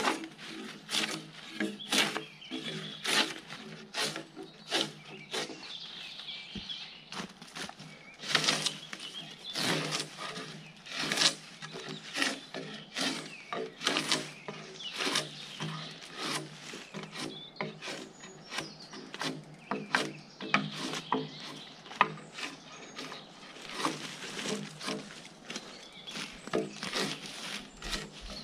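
Gränsfors Bruks drawknife stripping bark off a log in quick repeated pulls, each stroke a sharp scrape, about one to two a second.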